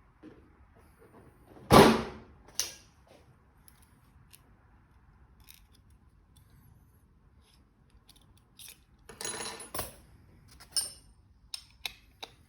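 Clicks and clinks of a metal spray gun being handled and adjusted, with one loud sharp knock about two seconds in, a smaller one just after, a brief rush of noise around nine seconds and a few small clicks near the end.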